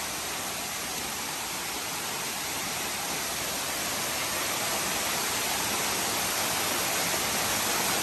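Waterfall: rushing water making a steady, even hiss that grows gradually louder.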